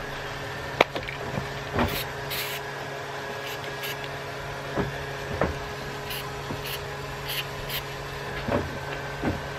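Aerosol can of 3M rubber and vinyl spray adhesive hissing in short bursts, about eight quick sprays in pairs. Under it runs a steady low hum, with a few soft knocks.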